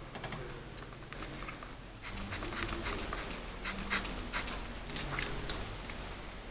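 Rustling and small crackling clicks from handling wound-cleaning and dressing supplies close to the microphone, a quick run of them from about two seconds in.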